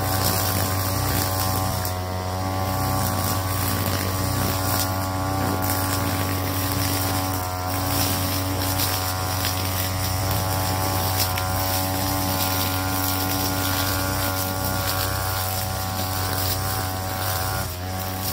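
TB43 two-stroke brush cutter running at a steady speed while cutting grass. Its pitch wavers and dips slightly near the end.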